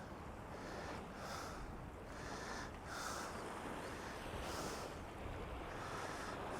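A man breathing close to the microphone, a soft puff roughly every one and a half seconds, over faint wind noise.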